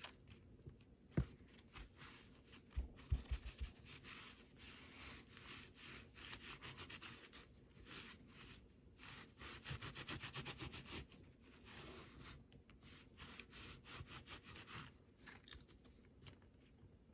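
Sponge dabbing ink through a plastic stencil onto paper: faint patting and rubbing in quick runs of strokes, with a few light taps in the first seconds.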